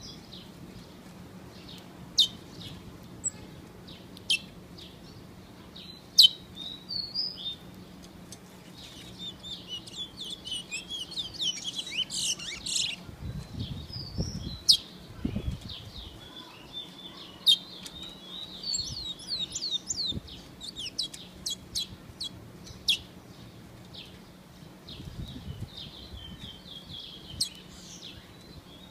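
Small songbirds chirping and singing in short, sharp high notes. Single calls come at first, then rapid runs of chirps a few seconds in and again later, over a faint steady low hum.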